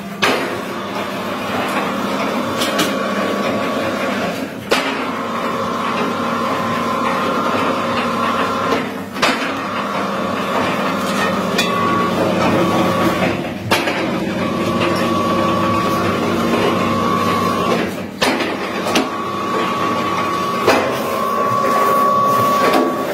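Candy-making machine with grooved steel rollers running on a rope of hard candy: a steady motor whine and low hum with occasional sharp knocks, dipping briefly every few seconds.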